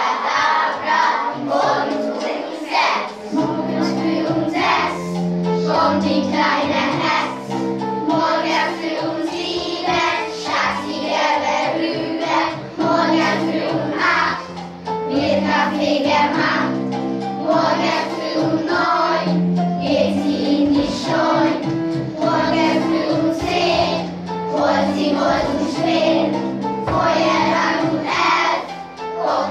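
A class of young children singing a song together, with steady held accompanying notes that come in about three seconds in.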